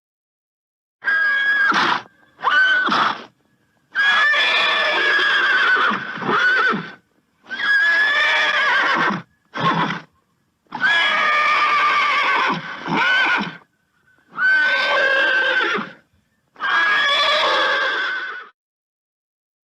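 A horse neighing and whinnying over and over: about eight calls of half a second to three seconds each, their pitch wavering, with short silent gaps between them.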